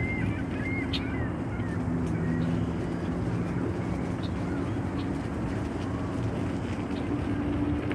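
Electric bike riding along a gravel trail: a steady low motor hum over a rumble of tyres and wind. A few faint bird chirps come through in the first couple of seconds.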